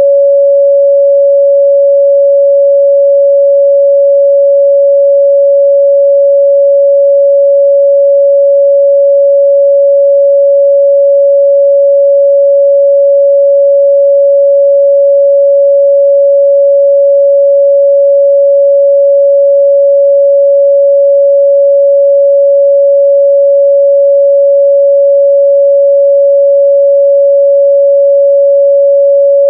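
A steady, loud 561 Hz sine-wave test tone, one pure pitch held without change.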